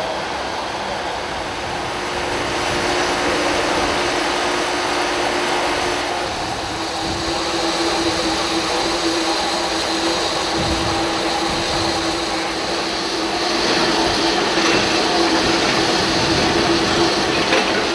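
Steam hissing steadily from a small Baldwin-built narrow-gauge steam locomotive standing at rest, with a faint steady hum underneath.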